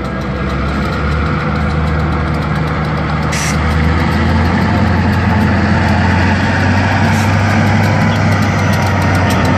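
Diesel freight locomotives running as they pass close by through a grade crossing, their engines growing louder as the lead units go by. A brief hiss about a third of the way in.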